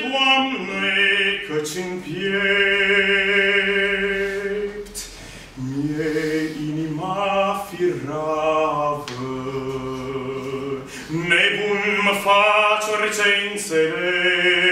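A man singing a slow Romanian hymn in long held notes with a slight vibrato, with a short break for breath about five seconds in.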